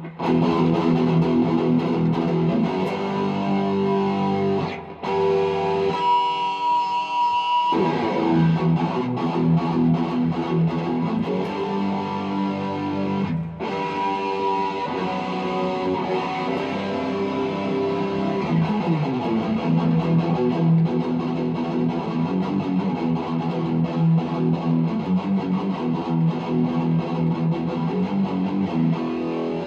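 Electric guitar played solo: a continuous run of picked and strummed notes, with short breaks about five and thirteen seconds in and one note held for a moment around six seconds.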